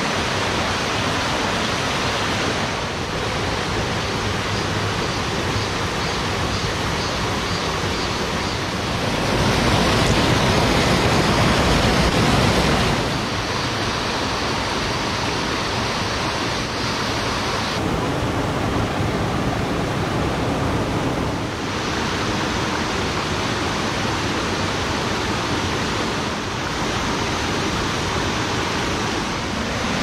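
Rushing stream water: a steady, dense rush that changes abruptly in loudness and tone several times, loudest from about nine to thirteen seconds in.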